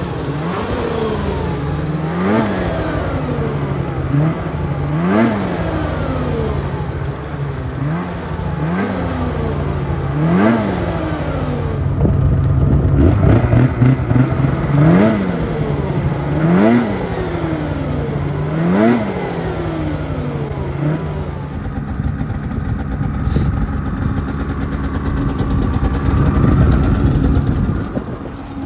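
Turbocharged Polaris 650 Patriot Boost two-stroke snowmobile engine on its first run, blipped again and again: each rev rises and falls back to idle about every two seconds. For the last several seconds it runs steadily at a higher speed.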